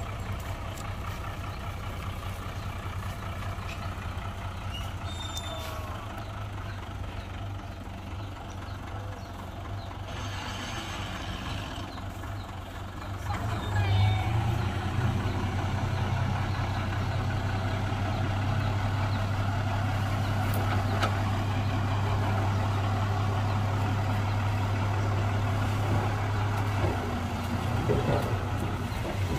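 Dump truck's diesel engine running steadily, getting louder about halfway through and then holding at the higher level.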